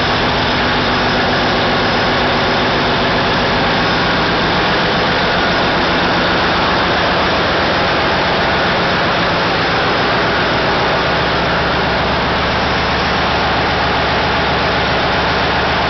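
Caterpillar 3606 inline six-cylinder diesel engines running steadily in an enclosed engine room: a loud, constant drone with a rapid firing beat underneath.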